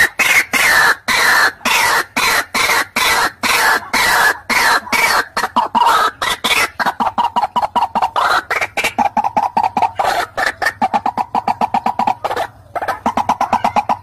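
White-breasted waterhen calling: a long fast run of harsh, repeated croaking notes that quickens after about six seconds, with a short break near the end.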